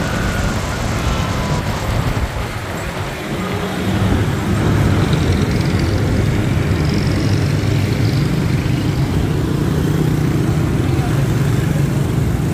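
A motor vehicle running, with a steady low engine hum and road noise that grows louder about four seconds in.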